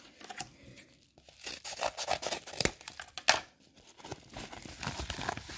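A kraft paper mailer envelope being torn open by hand: a run of ripping and crinkling paper, with two sharp snaps near the middle.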